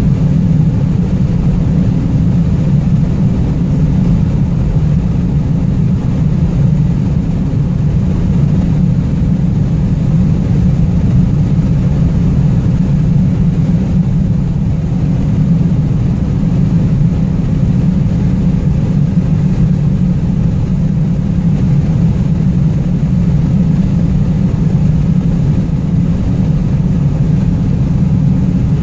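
Steady low road and engine hum of a moving car, heard from inside the cabin.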